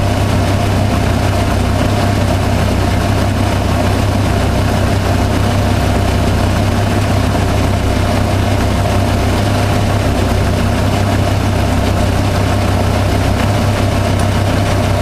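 1990 Jeep Cherokee's engine idling steadily, an even low hum that does not change.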